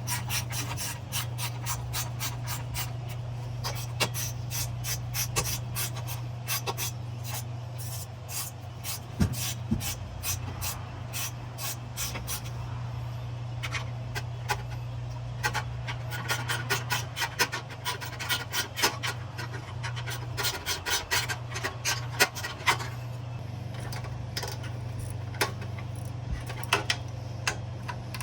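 Hand ratchet clicking in quick runs as bolts are turned on the turbo heat shield, with pauses between runs, over a steady low hum.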